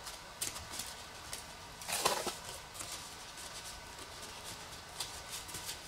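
Light clicks and rustles from an EPO foam horizontal tail as its elevator is worked back and forth on the hinge to free it up, with one louder rustle about two seconds in.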